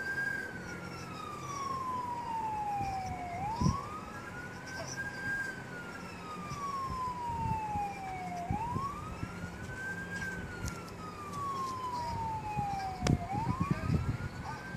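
Emergency vehicle siren wailing, each cycle a quick rise and then a slow fall, about three cycles, heard through a laptop's speakers. A sharp click sounds near the end.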